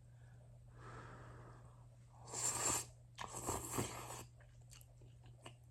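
A person slurping instant rice noodles close to the microphone: a softer slurp about a second in, then two loud slurps in the middle, followed by a few faint chewing clicks.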